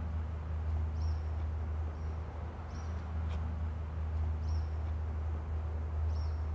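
A small bird giving short, high chirps, four times at an even pace of about one every second and a half, over a steady low hum.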